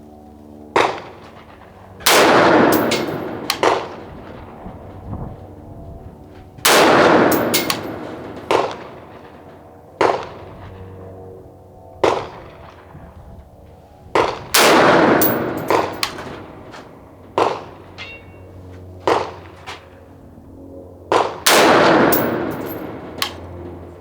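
Single rifle shots from an H&R M16A1-style AR-15, fired one at a time at irregular intervals, about a dozen in all. Four of them are the loudest, each trailing off in a long ringing echo.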